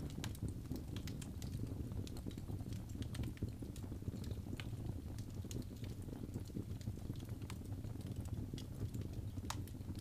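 Wood logs burning in a fireplace: a steady low rumble of flames with many irregular sharp crackles and pops, one louder pop near the end.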